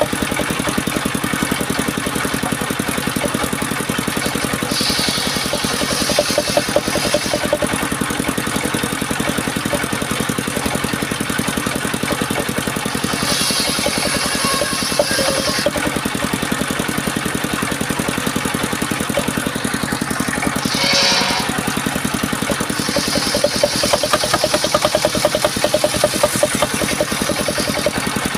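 Engine-driven homemade circular saw running steadily with a fast-pulsing engine drone. Several times, about five, thirteen, twenty-one and twenty-three seconds in, a higher hiss rises over it for a second or a few seconds as the blade cuts through waru wood.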